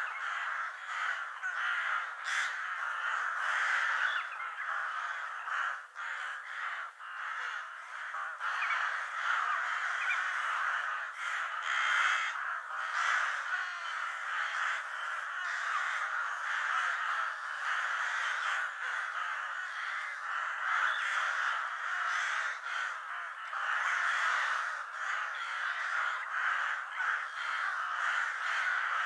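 A large flock of crows cawing, many calls overlapping into a continuous chorus with no pauses.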